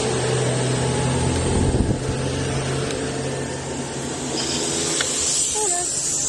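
A steady mechanical drone with a low hum and an even hiss, and a light click about five seconds in.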